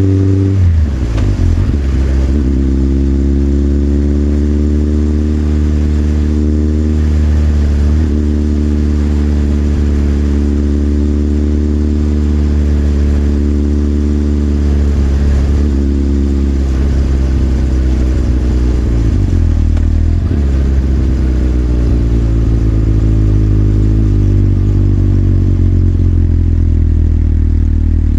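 Motorcycle engine heard from the rider's position. Its revs drop sharply about a second in, then it runs at low, steady revs with a few small dips in pitch later on.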